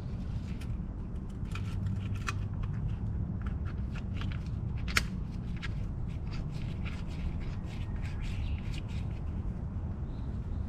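Scattered light clicks and taps of small parts and tools being handled during scooter maintenance, with one sharper click about five seconds in, over a steady low rumble.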